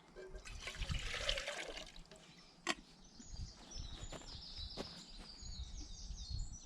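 Water being poured for about a second and a half near the start, a sharp click just before the middle, then a small bird singing short, repeated high notes through the second half.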